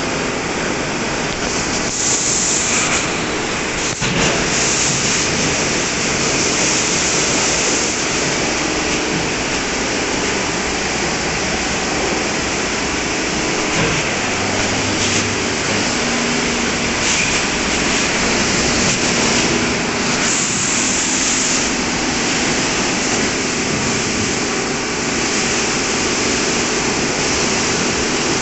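WashTec SoftCare 2 Pro rollover car wash in its brush wash: spinning wash brushes and water spray running steadily over the car, with a low machine hum underneath. The high-pressure jets hiss louder a few times, and there is one sharp click about four seconds in.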